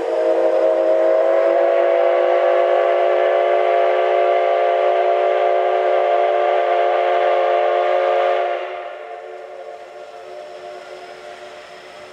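Steam whistle of the JNR Class C57 steam locomotive C57 180 sounding one long blast, a chord of several steady tones, stopping about eight seconds in and leaving a quieter steady hiss.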